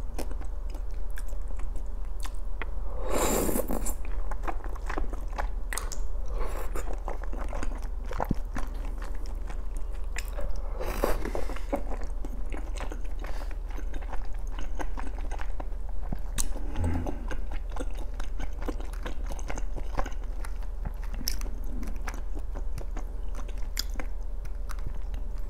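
Close-up chewing of chewy wheat-flour tteokbokki rice cakes in sauce: steady wet mouth sounds and small clicks, with two louder bursts about three and eleven seconds in.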